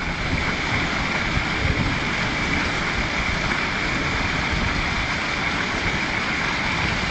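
Garden pond waterfall splashing steadily over weathered limestone rocks into the pond.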